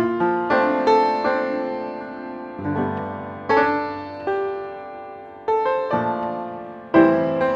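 Jazz piano music: chords struck and left to ring and fade, a new chord about every second or two.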